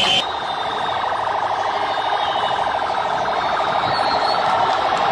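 Vehicle siren of a convoy's escort, sounding in a fast, even pulsing pattern that cuts in abruptly just after the start.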